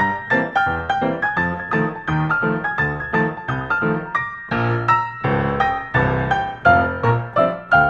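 Background music: a quick, bouncy run of piano or keyboard notes.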